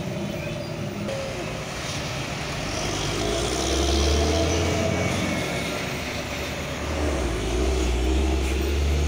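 Diesel engines of fully loaded heavy trucks pulling slowly past under load. A deep rumble swells about three and a half seconds in and again near the end, over steady traffic noise.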